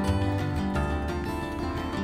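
Background music: a steady instrumental track with no speech.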